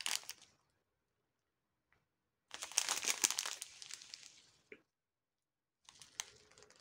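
Plastic packaging holding bagged round acrylic diamond-painting drills crinkling as it is handled. It comes in bursts: a brief one at the start, a longer one from about two and a half seconds in, and a fainter one near the end.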